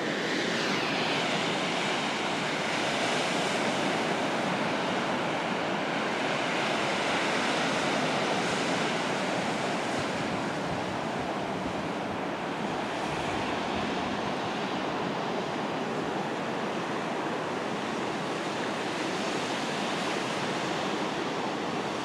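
Waves on a large lake washing in against a shore edged with ice and slush: a steady rush of surf that swells and eases slowly, with some wind.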